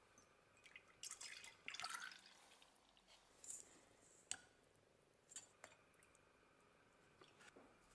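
Iron chloride solution poured into a glass jar, splashing for a second or so, then a few faint drips and light clicks against the glass.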